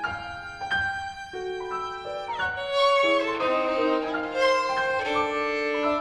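Violin and piano playing a contemporary classical piece: the violin holds long notes over struck piano notes, slides down in pitch a little after two seconds in, and the playing grows louder and fuller about three seconds in.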